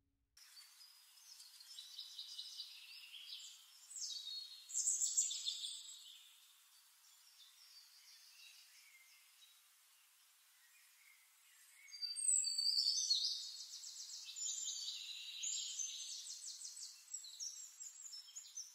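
Birds chirping and trilling in high, quick calls, loudest about five seconds in and again from about twelve seconds on, with a quieter stretch between.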